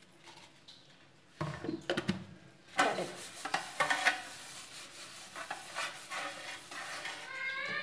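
A few knocks as a ghee jar and an aluminium plate are handled, then a cloth rubbing ghee over the flat aluminium plate in a steady scrubbing scrape.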